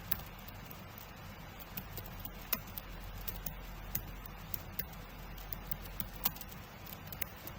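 Keyboard keys being typed on: irregular, sparse clicks over a low steady hum.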